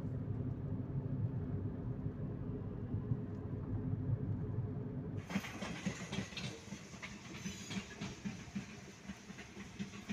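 Road and engine noise inside a moving car's cabin: a steady low rumble, then about five seconds in an abrupt change to brighter road noise with rapid rattling knocks.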